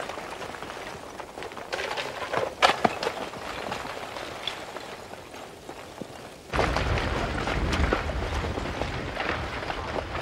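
Lava blocks at an advancing lava flow front crackling and clinking with a sound like breaking glass, with sharp knocks about two to three seconds in. About six and a half seconds in, a louder rushing rumble of loose rock and debris starts suddenly.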